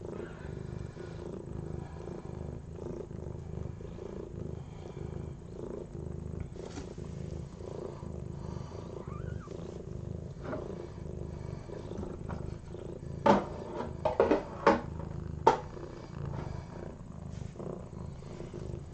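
A mother cat just after giving birth, purring steadily with an even, pulsing rumble while she licks her newborn kitten. About two-thirds of the way in come several loud, sharp clicks in quick succession.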